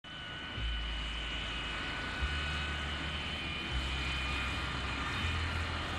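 Jet airliner's engines whining steadily as the Boeing 737 taxis, a high whine over a low rumble that swells and settles in steps.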